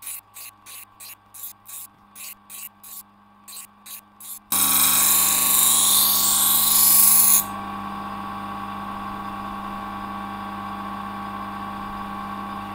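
Electric grinder's motor running with a steady hum while a steel knife blade is ground on its wheel. For the first four seconds or so the blade touches the wheel in short, quick strokes, about four a second. Then comes one loud continuous grind of about three seconds, after which the motor runs on without contact. This is the regrinding of the blade's bevel shoulder to an even width.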